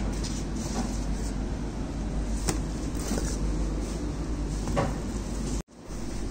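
Steady low hum of kitchen equipment with a few light knocks from a metal mesh pizza screen being handled. The sound cuts out for a moment near the end.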